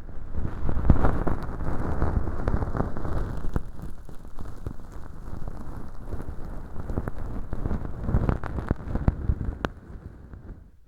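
Bonten feather earpick rubbing inside a velcro-lined artificial ear canal packed with dry, flaky fake earwax: a dense crackly rustle full of small clicks, coming in waves and fading near the end.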